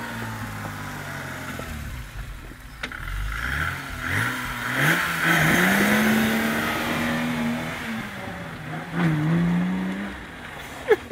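Homemade tractor powered by a BMW 325e's 2.7-litre straight-six engine, revving hard as it pulls away over rough ground; the revs climb, hold, dip and rise again, then the engine fades as it moves off. A few short, sharp sounds close by near the end.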